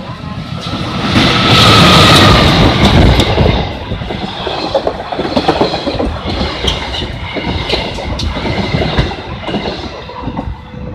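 Diesel locomotive and passenger coaches of the KA Rajabasa train passing close by, loudest about two seconds in as the locomotive goes past. The coaches' wheels then keep up a clickety-clack over the rail joints.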